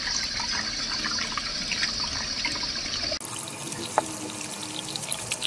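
Kitchen tap running onto a gutted fish in a stainless steel sink, hands rubbing and splashing as the blood along the backbone is rinsed out. The water sound changes abruptly about three seconds in.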